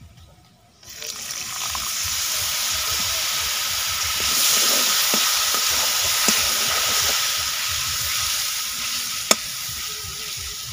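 Water poured into a hot wok of fried onion and spice paste sets off a loud sizzle about a second in, which keeps going as a metal spatula stirs the mixture. One sharp knock near the end.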